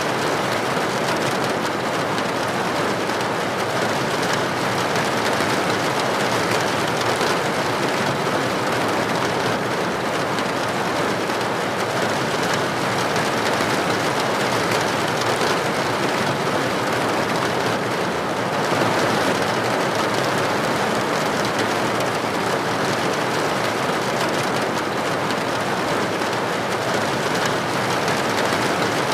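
Steady rain falling, a dense, even hiss of drops that neither swells nor breaks.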